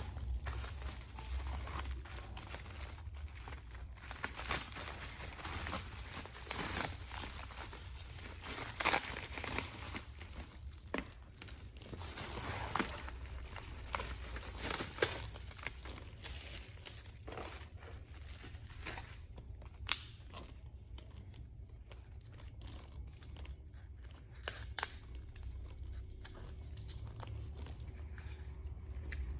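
Package wrapping being handled and torn open: irregular crinkling and tearing, busiest in the first half and sparser later, over a low steady hum.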